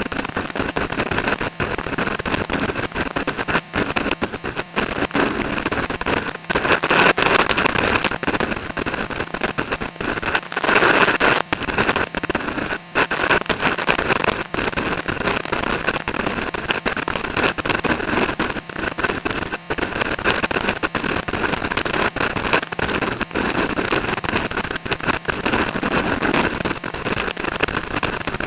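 Strong wind buffeting the microphone: a dense crackling rush with many brief dropouts, swelling louder about 7 and 11 seconds in.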